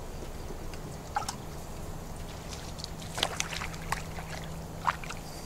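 A hooked crappie splashing at the water's surface as it is reeled in beside the boat: a few short, sharp splashes, the loudest about three seconds in and near the end, over a steady low hum.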